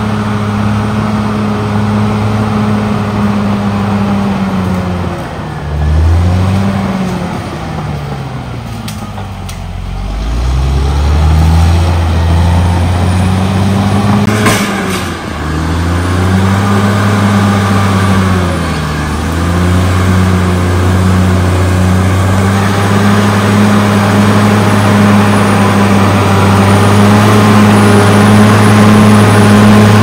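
A Caterpillar D6R XL bulldozer's diesel engine running as it pushes earth with its blade. The engine's pitch dips and recovers several times, with one sharp clank about halfway through. It then holds a steady note that grows louder near the end.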